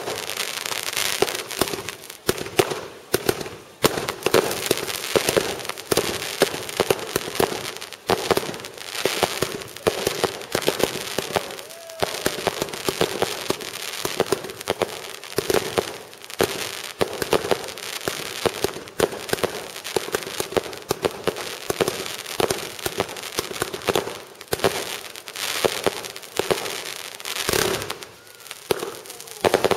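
Aerial fireworks going off in a dense, unbroken barrage of bangs and crackling, several reports a second.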